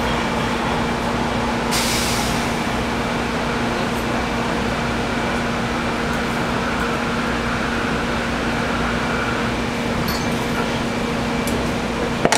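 Inside a passenger train car: the steady rumble and hum of the car running, with a short hiss about two seconds in and a few light clicks near the end.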